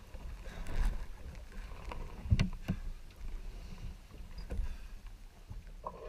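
Water sloshing and rumbling against a small sailboat's hull, with a few knocks and bumps as a swimmer hauls himself back aboard, the loudest two close together about two and a half seconds in.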